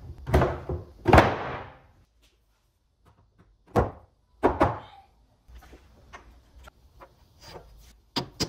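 Heavy wooden thunks: two loud ones about a second apart near the start, two more about four seconds in, then lighter scattered knocks and clicks, as of solid hardwood pieces being set down or knocked together on a workbench.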